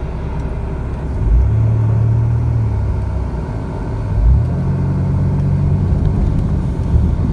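Car engine and road noise heard from inside a moving car, with a low thump about a second in and another about four seconds in, the engine note sitting higher after each.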